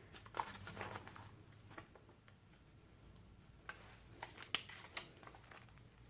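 Faint rustling and light taps of paper and card being handled: pages, tags and journaling cards of a handmade paper journal moved and turned, with a small cluster of crisper clicks about four seconds in.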